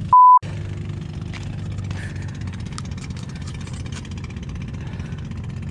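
A short, loud single-pitch censor bleep just after the start, then a steady low engine hum, like a motor idling, with scattered light clicks.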